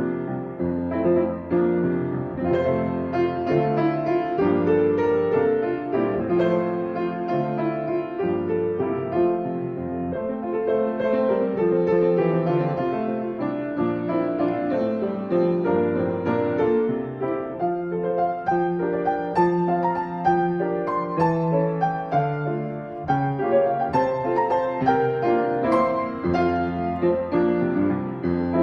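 Piano playing a continuous piece, with notes struck one after another throughout.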